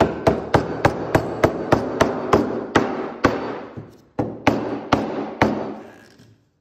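A rubber mallet striking wooden boards, knocking a cross-lap (half-lap) joint together so it seats tight. It starts as a quick run of blows at about four a second, then slows to a handful of spaced blows, the last one about five and a half seconds in.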